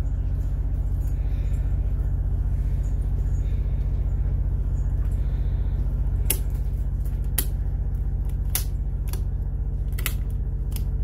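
Boat's marine generator running steadily with a low drone, running well with no problems on the power side. From about six seconds in, about six sharp clicks come as breaker switches on the AC panel are worked.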